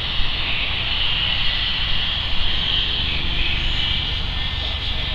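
Radio-controlled model jet flying past, its engine giving a steady high-pitched whine, over a low rumble of wind on the microphone.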